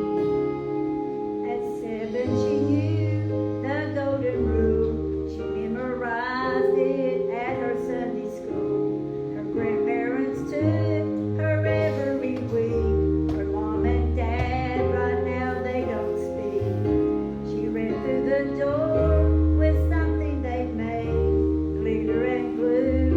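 A solo singer sings a worship song over instrumental accompaniment, with sustained chords and a steady bass line underneath.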